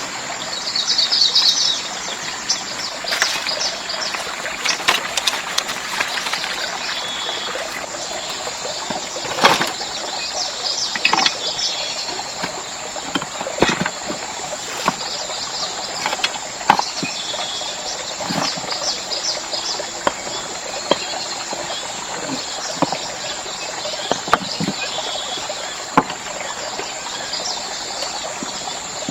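Forest ambience: a steady high insect whine with repeated bursts of fast chirping, the loudest about a second in, and sharp knocks or taps scattered throughout.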